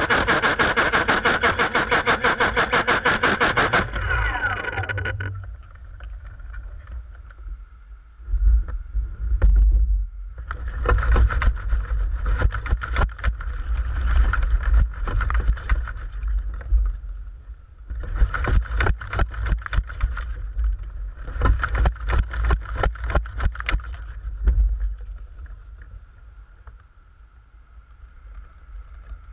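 DJI Phantom quadcopter's motors and propellers running at speed with a rapid, even chopping. They cut off about four seconds in and wind down in falling pitch. Then gusts of wind buffet the stranded drone's camera in bursts, with leaves and twigs rustling and knocking against it.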